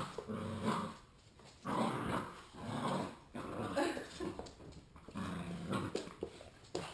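Two pit bull-type dogs growling in short repeated bursts as they tug at a rope.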